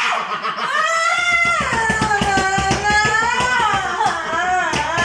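A long, high-pitched wailing cry: one drawn-out voice whose pitch slowly dips and rises, with a quick wavering pulse underneath.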